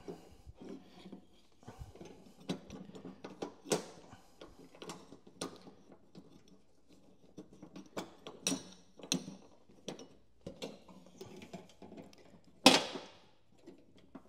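Irregular clicks, taps and rubbing as a new V-belt is worked by hand around the pulleys of a John Deere Sabre 42-inch mower deck, with one louder knock near the end.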